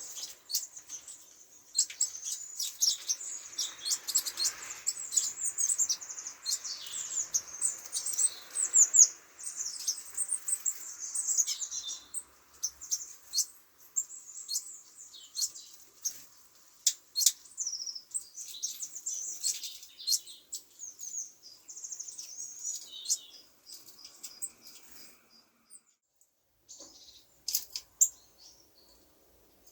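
Small songbirds giving many quick, high chirps and calls, dense at first and thinning out after about twelve seconds, with a short lull near the end. A soft rush of background noise sits underneath during the busy first part.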